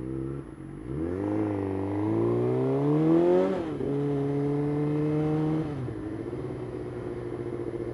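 Suzuki GSX-R600's inline-four engine pulling away: the revs rise for about three seconds, drop sharply with a gear change, hold steady, then fall back about two seconds before the end to a lower, steady note.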